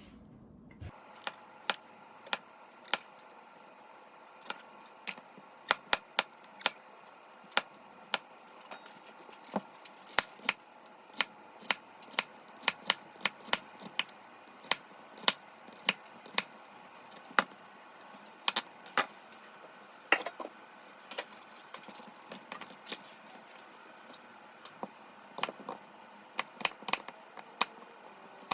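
Irregular sharp clicks and light clinks of small hard objects being handled, some with a brief ring. There are two or three a second at their busiest, with short gaps between.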